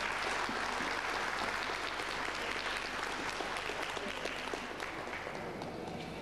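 Audience applauding, a dense patter of clapping that gradually fades toward the end.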